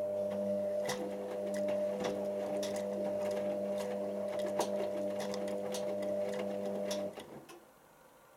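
Hotpoint First Edition HVL211 washing machine's drum motor turning the load in a heat-stage tumble on a Cotton 90 wash: a steady hum with scattered clicks. The motor stops about seven seconds in.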